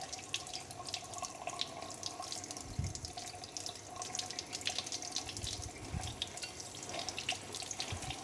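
Tap water running over a freshly brazed copper tube and stainless steel plate and splashing into a steel sink, cooling the hot joint. A few soft low thumps sound under the steady splashing.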